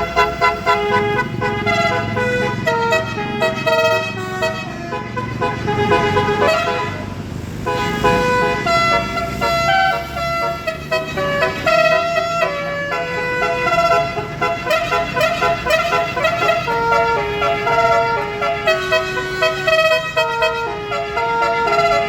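Tour bus 'telolet' Basuri multi-tone air horn playing a melody: a quick run of held, brassy notes stepping up and down in pitch, with a short noisy break about seven seconds in.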